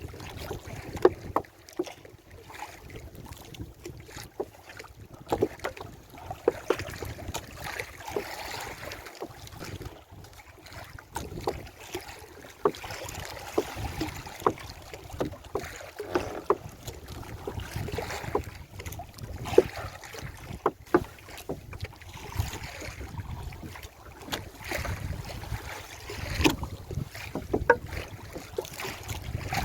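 Small fishing boat out on choppy sea: wind buffets the microphone over rushing, splashing water, with irregular knocks against the hull.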